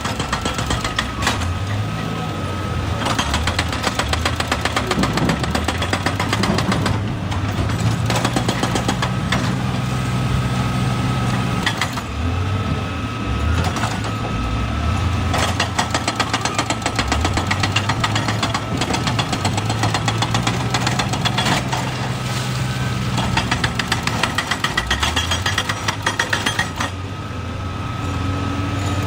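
Excavator's diesel engine running under changing load, its pitch stepping up and down every few seconds, with rapid, even knocking throughout.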